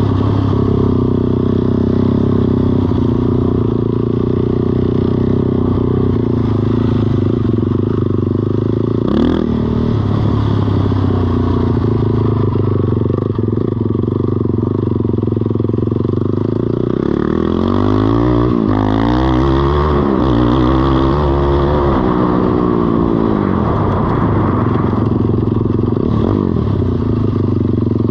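Kymco Mongoose 90 mini ATV's small four-stroke engine running close by. Its pitch rises and falls with the throttle for a few seconds about two-thirds of the way through, then settles back to a steady note.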